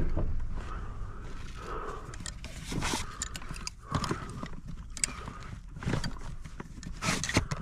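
Irregular knocks and clicks, spaced unevenly, over a low steady hum.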